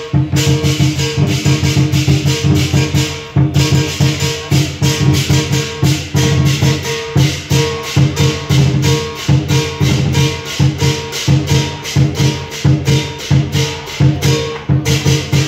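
Lion dance percussion ensemble playing: a large lion dance drum beating a fast rhythm with crashing cymbals and a ringing gong. The cymbals break off briefly about three and a half seconds in and again near the end.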